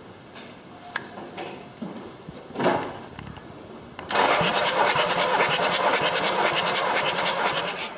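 Starter motor cranking a VW Transporter T4 2.5-litre five-cylinder TDI diesel engine for about four seconds, with an even rapid pulse from the compression strokes, during a compression test. Before it, a few clicks and a short knock from handling.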